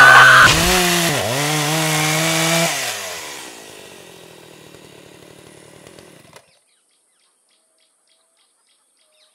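Chainsaw engine revving, its pitch dipping and surging, then winding down about three seconds in and fading out.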